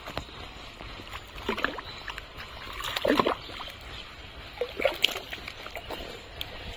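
Hands and arms sloshing through thick, muddy water while catching fish by hand, with several irregular splashes, the loudest about three seconds in.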